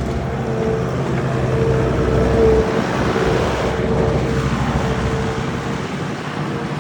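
Heavy farm machine's engine running steadily under load, with a constant high whine over the engine note that swells a little around the middle.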